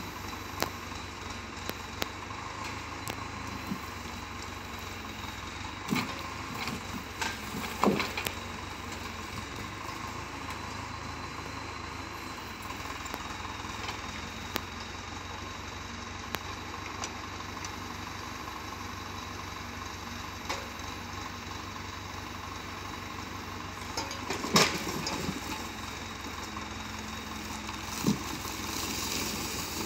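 Farm tractor's diesel engine running steadily while it powers the hydraulic log crane on its forestry trailer, unloading long pine logs. A few sharp knocks of logs striking the pile, the loudest about 25 seconds in.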